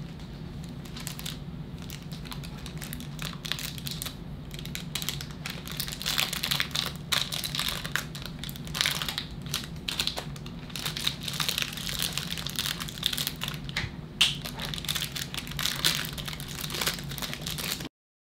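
Plastic wrapping crinkling and rustling in the hands as trading-card packs are unwrapped, over a steady low hum. The sound cuts off suddenly near the end.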